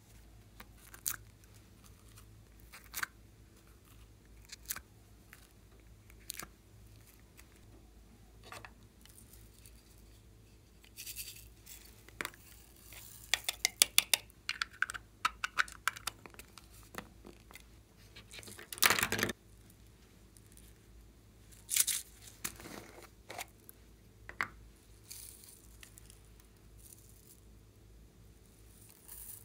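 Hands handling and opening small plastic tubs of clay and slime: scattered taps and clicks of plastic, a quick run of rapid clicks in the middle, and a louder ripping sound about two-thirds of the way in, with a shorter one soon after, as the contents are peeled out.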